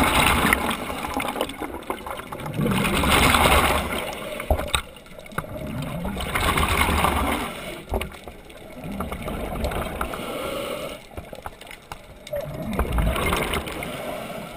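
Scuba diver's regulator exhalations heard underwater: a rush of bubbles about every three seconds, five in all, with quieter gaps between breaths.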